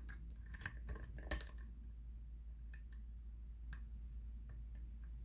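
Light, irregular metallic clicks and ticks of a hook pick working the pins of a six-pin challenge lock under tension, during single-pin picking. The clicks are bunched in the first second and a half, come sparsely after that, and there is a sharper click at the very end.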